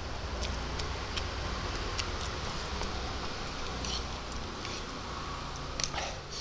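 Close-up eating noises from a person eating spicy instant noodles: scattered short clicks and smacks, two close together near the end, over a steady low hum.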